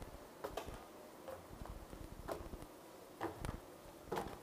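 Footsteps on a wooden walkway: separate knocks about once a second, some in quick pairs.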